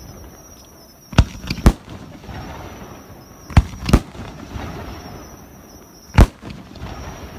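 Aerial firework shells bursting: five sharp bangs, two pairs about half a second apart and then a single one near the end, with a softer hiss between the bursts.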